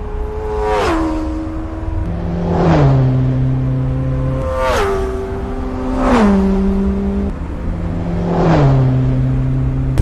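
Motorcycles passing at speed one after another, five passes, each engine note steady as it approaches and then dropping in pitch as it goes by.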